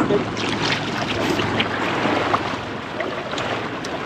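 Water rushing and wind noise aboard an offshore fishing boat, with scattered light clicks and knocks.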